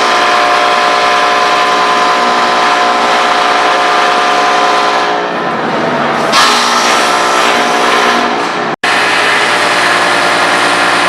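Disc wood chipper driven by a 5 horsepower electric motor through pulleys, running with a steady, many-toned mechanical hum. It eases off briefly near the middle, then cuts out for an instant about three-quarters through and carries on with a slightly different tone.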